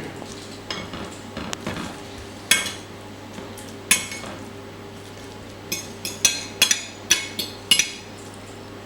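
Cutlery and dishes clinking: two sharp knocks, then a quick run of ringing clinks from about six seconds in, over a steady low hum.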